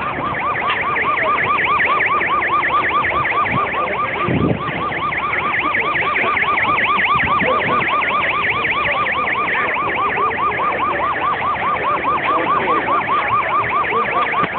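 Police car siren in a fast yelp, its pitch rising and falling several times a second without a break.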